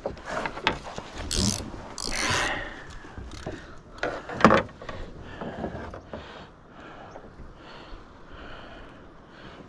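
Close handling noises from an angler holding a fish in a kayak: irregular rustles, clicks and light knocks. There is a sharp click about four and a half seconds in, and the sound settles down after that.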